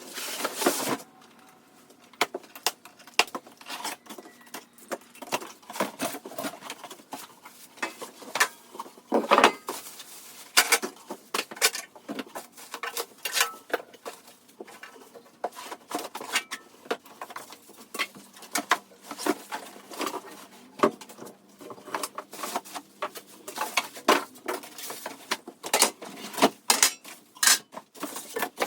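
Sped-up handling noise from unboxing and assembling a dust extractor: a fast, irregular run of clicks, knocks and rattles from metal parts, fixings and packaging.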